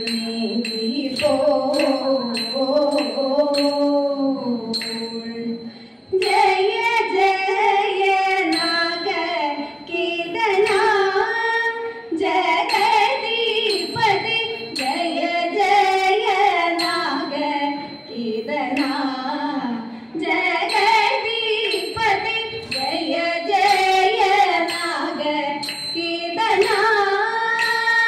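A Thiruvathira song: female voices singing a Carnatic-style melody, with evenly spaced sharp claps in the first few seconds.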